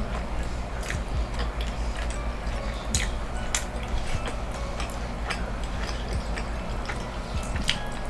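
Close-miked chewing of a hard-shell taco, with irregular crisp crunches and clicks from the shell and mouth over a low steady hum.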